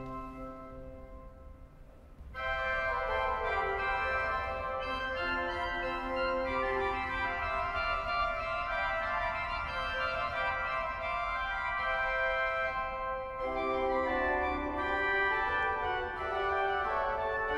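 Pipe organ by Zanin (2001) playing a Baroque set of keyboard variations. A held chord dies away in the church's reverberation, and a new section of running notes starts about two seconds in. A lower voice joins about thirteen seconds in.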